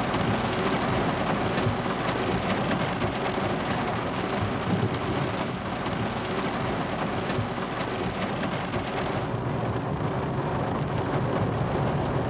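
Steady rain in a thunderstorm, falling on pavement and a car window, with low thunder rumbling underneath.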